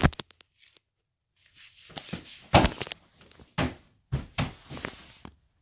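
A small child climbing over foam cushions onto a plastic toy chest: a sharp knock at the start, then a run of uneven knocks, thumps and rustling from about a second and a half in.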